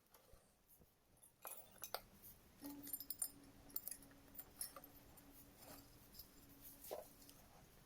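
Faint, scattered metallic clicks and clinks, with a faint steady hum through the middle.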